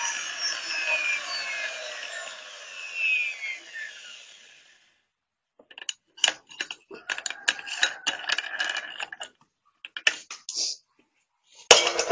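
Angle grinder winding down after being switched off, its whine falling in pitch and fading over about five seconds. Then come scattered metallic clicks and rattles as the disc and its fittings are handled, with a louder clatter near the end.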